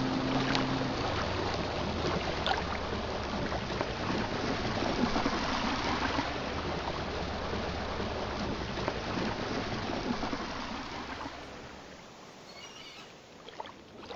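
Outboard motor of a small skiff running steadily as it motors away across the harbor, a low hum under a steady rush of noise. It fades out near the end.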